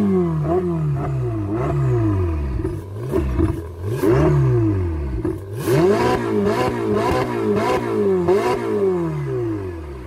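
Ferrari 488's 3.9-litre twin-turbo V8 revved through its exhaust while standing still, in a quick run of throttle blips, the pitch climbing and falling with each one.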